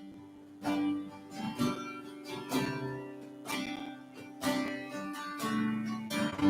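Acoustic guitar strumming chords, about one strum a second, as an instrumental interlude between verses of a hymn.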